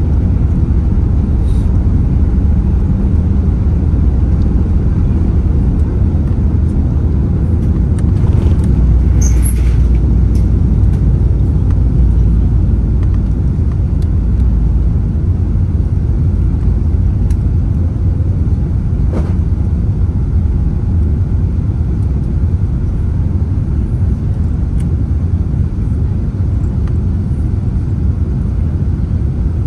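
Steady low rumble of an Airbus A380-842 during takeoff, its Rolls-Royce Trent 900 engines and airflow, easing slightly near the end.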